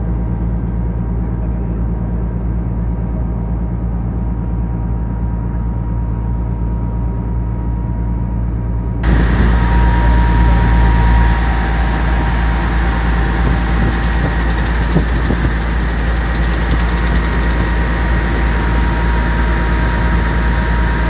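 River ferry's engine running with a steady low drone. About nine seconds in the sound turns brighter and hissier, with a faint steady whistle over the same drone.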